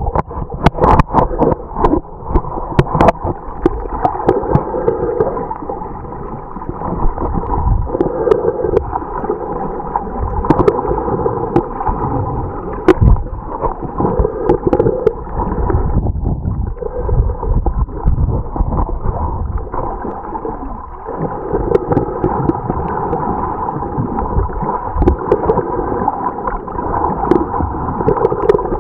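Water sloshing and gurgling heard through a camera held underwater, dull and muffled, with scattered sharp clicks and knocks and a swelling pulse every few seconds.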